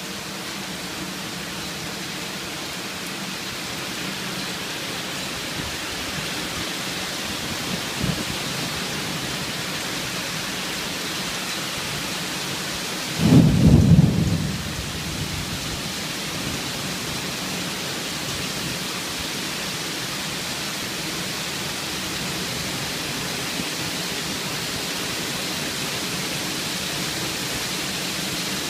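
Heavy thunderstorm rain falling steadily. About halfway through, a loud, sudden low burst lasts a second or so.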